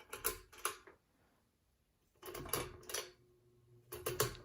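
Ceiling fan's light kit rattling and clicking in three short bouts, with a faint low hum joining about two seconds in.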